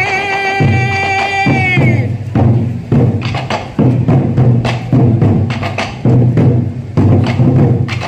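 Sansa odori music. A long held note of the melody ends with a downward slide about two seconds in, then Japanese taiko drums keep a steady beat, a little more than one stroke a second.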